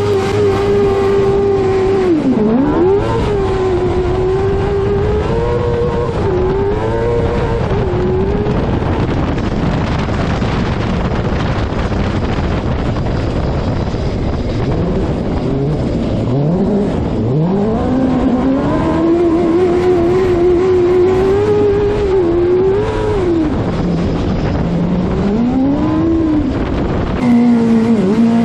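Suzuki GSX-R600 inline-four motorcycle engine in a crosskart, revving high as the kart is driven hard, its note holding, dipping and sweeping up again and again, with several quick rising sweeps about halfway through. Heard from the driver's seat, with a rush of wind and tyre noise underneath; the note drops lower and steadier near the end.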